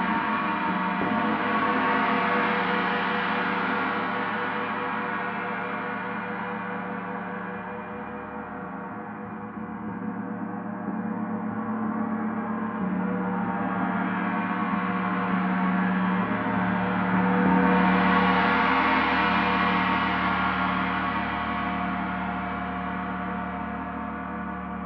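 Paiste planetary gong tuned to Saturn (D, 147.85 Hz) played solo: a dense, sustained shimmer of many overtones that swells, ebbs about a third of the way in, then builds to its loudest a little past the middle and slowly eases.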